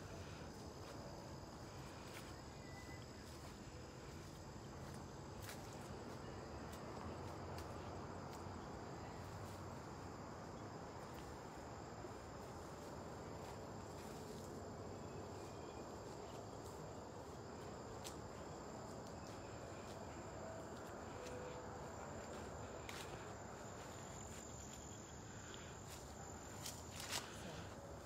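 Crickets trilling steadily in prairie grass: a faint, continuous high-pitched chorus, over a low, even rustle of walking and handling.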